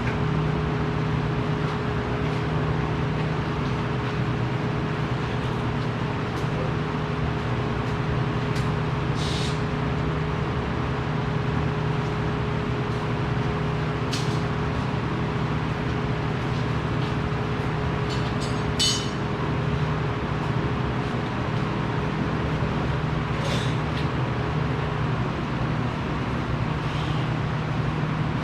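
Steady hum of machinery in a welding and fabrication shop, with a few short, sharp metallic clicks or knocks scattered through it.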